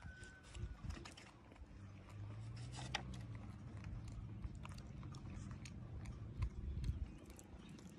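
A young macaque chewing and smacking on sticky rice: faint, scattered small clicks of mouth and lip noise, with a low steady hum underneath from about two seconds in until near the end.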